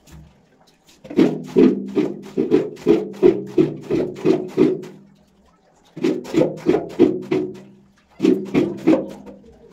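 Background music with a steady percussive beat of about three knocks a second. It starts about a second in and breaks off twice.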